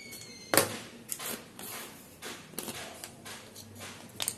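Sharp clicks and knocks of kitchen items being handled, the loudest about half a second in and a few fainter ones after.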